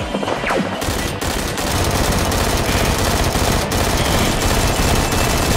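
Gunfire: a sustained barrage of rapid automatic fire, the shots packed so close they run together.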